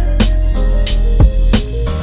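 Background hip-hop/R&B-style music with a steady drum beat, a deep kick drum and sustained synth or bass notes.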